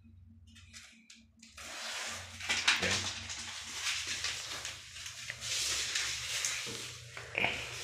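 Backing paper being peeled off a strip of black anti-slip tape as the tape is pressed onto a tiled floor. The paper rustles and crackles, starting about a second and a half in, with a few sharper crackles.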